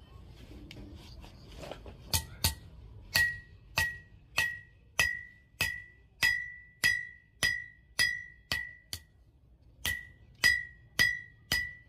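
A hammer striking a piece of steel about sixteen times, just under two blows a second, starting about two seconds in with a brief pause near the end. Each blow rings at the same clear pitch.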